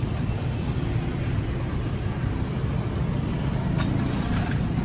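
Steady low rumble of road traffic, with a few light clicks near the end.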